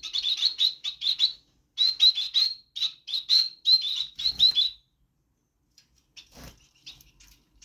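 Bengalese finches (society finches) chirping: a quick run of short, high notes, several a second, for about five seconds, then a pause and fainter chirps near the end, with one soft knock in between.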